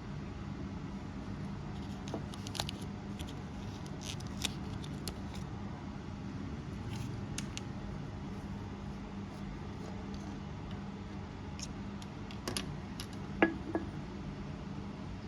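Light clicks and clinks of small objects being handled over a steady low hum, with one louder, briefly ringing clink about 13 seconds in.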